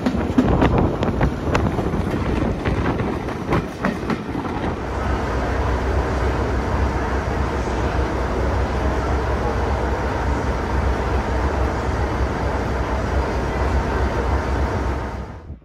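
Train wheels clicking over the rail joints with wind rush at an open carriage window; about five seconds in this gives way to Class 37 locomotive 37219's English Electric V12 diesel idling steadily, which cuts off just before the end.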